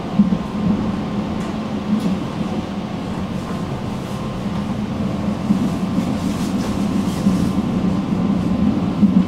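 Tram running on its rails: a steady low rumble with a few faint clicks.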